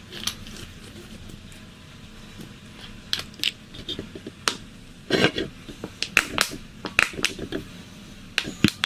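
Scattered light clicks and taps of containers and utensils being handled while DIY shaving cream is added to slime, coming closer together about halfway through.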